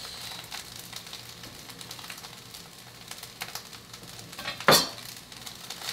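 Fried rice sizzling in a hot frying pan as it is stirred, with small scraping clicks throughout and one loud knock against the pan about four and a half seconds in.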